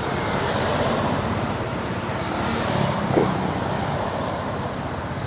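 Steady city street traffic: passing cars and motorbikes making a continuous road hum, with a brief pitched sound about three seconds in.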